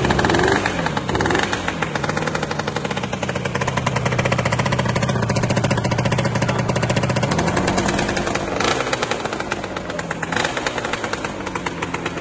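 1983 Yamaha RD350 YPVS two-stroke parallel-twin engine running after a kick start, its revs rising and falling several times with throttle blips over a fast, even crackle. It is running smoky with excess oil in it.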